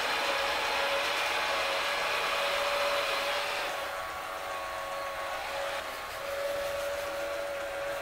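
Ecovacs Deebot X1 Omni robot vacuum running: a steady whirring rush with a steady whine on top, the rushing part dropping down about four seconds in while the whine carries on.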